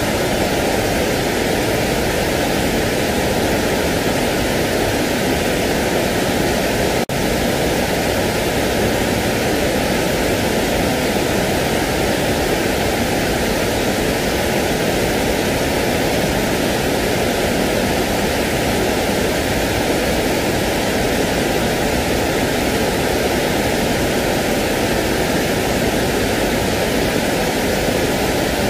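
Steady, even shushing noise of the kind played to lull a baby to sleep, fuller in the lower range, with a faint hollow spot in its tone. It drops out for an instant about seven seconds in, as at a loop join.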